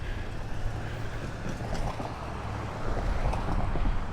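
A motor vehicle engine running with a steady low rumble, growing louder about three seconds in.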